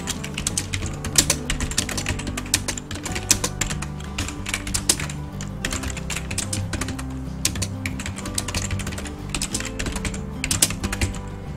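Computer keyboard typing: rapid, irregular keystroke clicks with short pauses, over background music with held low notes.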